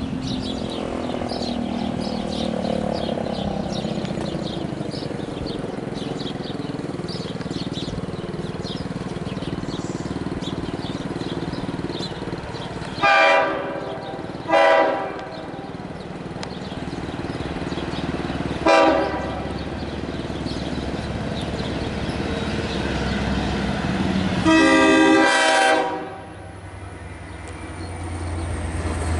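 Long Island Rail Road diesel train running past with a steady rumble, its air horn sounding in short blasts: two about halfway through, a brief one a few seconds later, and a longer blast of just over a second near the end.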